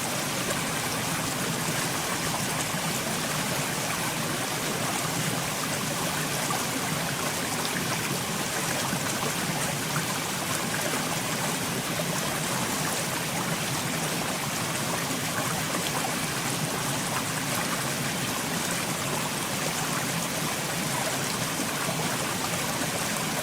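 Steady rushing of running water, even and unchanging.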